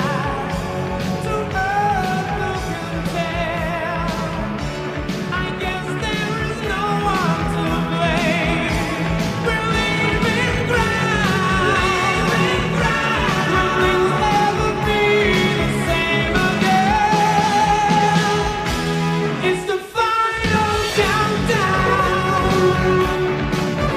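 Background pop song with a sung vocal and a steady beat, with a brief break about twenty seconds in.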